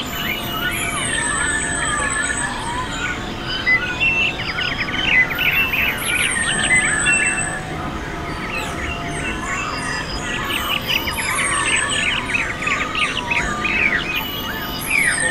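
Many small birds chirping and twittering together, with a high falling whistle recurring about every five seconds.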